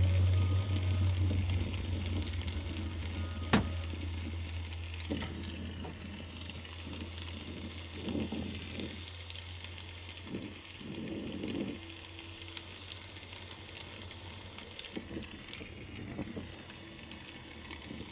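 Brazing torch flame hissing steadily while copper refrigerant line joints are brazed, with a low rumble that fades away over the first twelve seconds. A single sharp click about three and a half seconds in.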